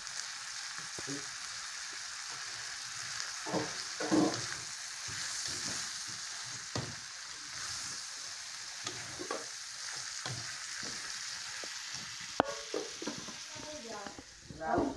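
Sliced onions and diced bacon sizzling steadily in an aluminium frying pan while being sautéed until soft and golden, with a spatula scraping and clicking against the pan as they are stirred.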